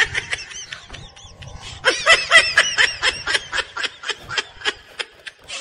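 High-pitched laughter, a quick run of repeated 'ha-ha' pulses, starting about two seconds in after a short vocal sound.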